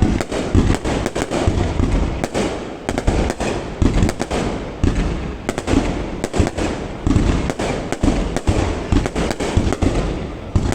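Aerial fireworks going off in rapid, irregular, overlapping bangs, several a second, over a continuous low rumble.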